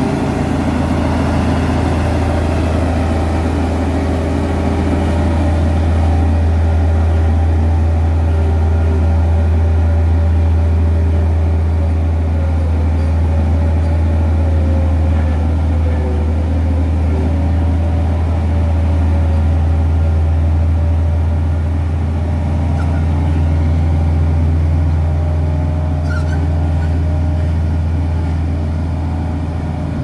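Komatsu D58E crawler bulldozer's diesel engine running steadily with a strong low hum while the dozer pushes topsoil with its blade.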